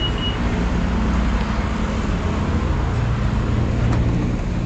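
Road traffic and running car engines: a steady low rumble with a hiss over it.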